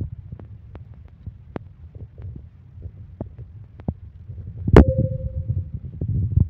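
Woven bamboo fish trap handled on wooden planks with live fish inside: scattered light taps and knocks over a low rumble, and one loud sharp knock about three-quarters of the way through that rings briefly.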